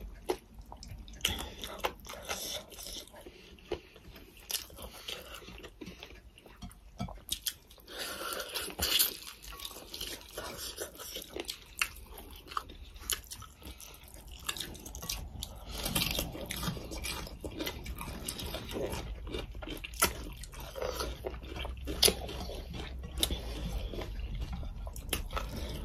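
Close-up mukbang eating sounds: two people chewing, smacking their lips and biting into food as they eat chicken curry and rice by hand, with many short sharp clicks and crunches scattered throughout.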